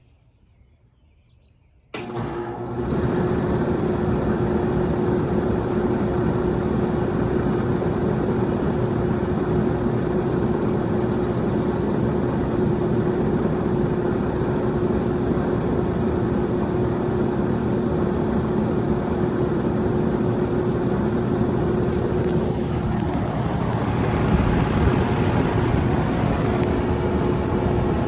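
A 2005 Rheem Classic air conditioner's outdoor unit kicks on suddenly about two seconds in, its compressor and freshly replaced condenser fan motor starting together, then running steadily with a constant hum. Near the end the sound briefly grows louder and rougher before settling again.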